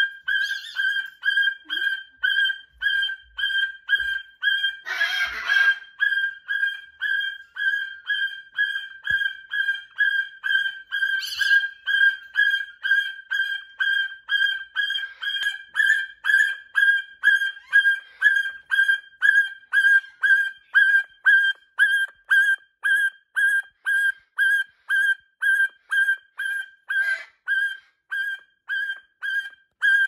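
Background music: a single high electronic note repeated evenly, about two beats a second. A short noisy burst about five seconds in, and a brief shrill call near the middle.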